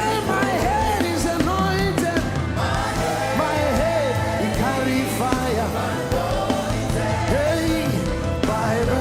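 Live gospel worship music: the band plays with a steady bass and drum groove, under a lead melody that swoops and bends in pitch, with no sung words.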